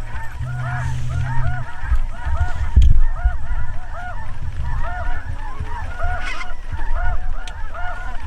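A flock of geese honking: many overlapping calls repeating in a steady chatter. A loud low thump comes about three seconds in.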